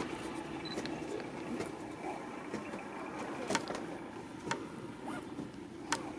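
A steady low motor hum, with a few sharp knocks in the second half.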